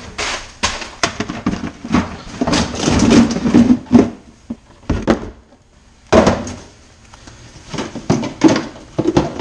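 Aluminium beer cans clattering and knocking as they are tipped from a cardboard case into a plastic cooler and packed in by hand. The clatter is densest and loudest about three to four seconds in, with a single sharp knock about six seconds in and more clicks near the end.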